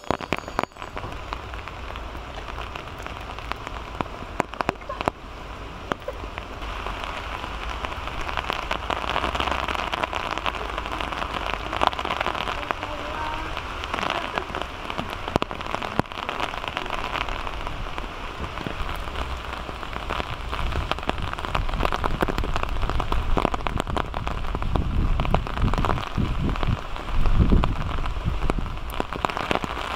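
Heavy rain falling steadily, with many sharp drop hits scattered through it and a brief low rumble near the end.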